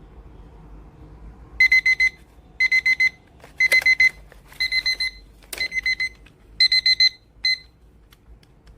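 Square digital kitchen timer's alarm going off: groups of four quick, high beeps, about one group a second, starting about a second and a half in and cutting off after a single beep near the end. A couple of sharp clicks fall among the beeps.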